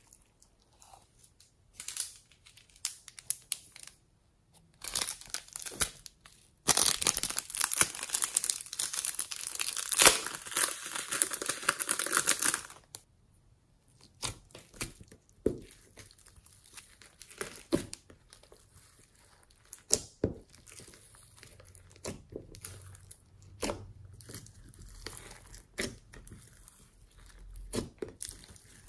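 Hands poking, pressing and kneading glossy slime loaded with glitter, foam beads and sequins, giving sticky crackling and popping clicks. The sound is densest and loudest from about seven to thirteen seconds in.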